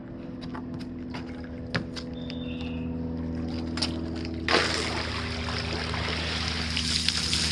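Water pouring and splashing out of a pool vacuum's cartridge filter as it is lifted out of the water, starting about four and a half seconds in. A steady low electric hum runs underneath.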